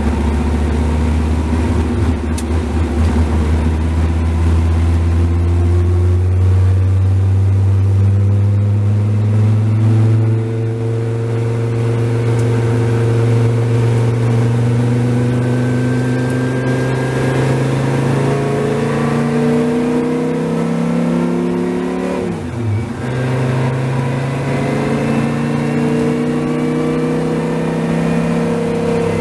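Dodge Viper race car's V10 engine heard from the cockpit, pulling hard as the car accelerates: its pitch climbs slowly, dips sharply at a gearshift about 22 seconds in, then climbs again.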